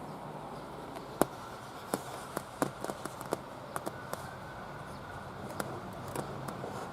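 About a dozen short, sharp clicks and light taps, bunched in the middle, over a steady low hum.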